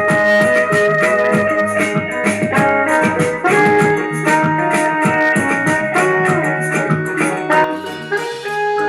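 Music with a steady beat and held instrumental notes, played through a Zealot portable Bluetooth speaker for a sound test.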